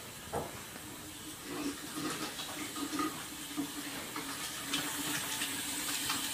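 Bathroom sink tap running: a steady rush of water into the basin.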